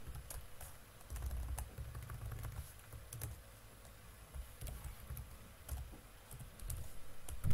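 Typing on a computer keyboard: scattered, irregular keystrokes over a faint low rumble.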